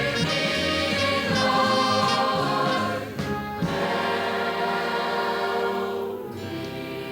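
A choir singing a gospel song in held, sustained notes, with a short break about three seconds in; it gets quieter after about six seconds.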